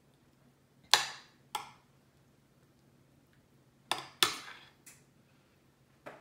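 A metal spoon clinking against a glass baking dish while spreading a creamy casserole topping: about six sharp clinks at uneven intervals, each ringing briefly, two close together about four seconds in.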